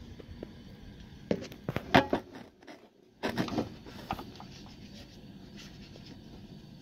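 Scratching, rubbing and clicking as the inverter's cables and wiring are pushed aside by hand, with a few sharp clicks about a second and a half to two seconds in. The sound drops out briefly just before the middle.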